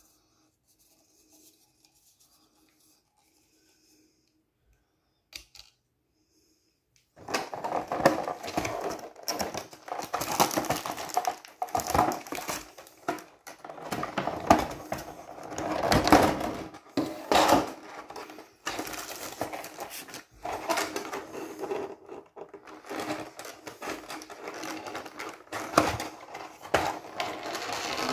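Clear plastic display case and its packaging being handled and opened by hand: irregular crackling, clicking and clattering of hard plastic, starting after several quiet seconds.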